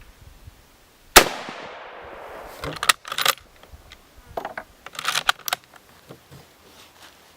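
A single shot from a Mosin-Nagant bolt-action rifle about a second in, its report trailing off over about a second, followed by two bursts of metallic clacks as the bolt is worked to eject the spent case and chamber the next round.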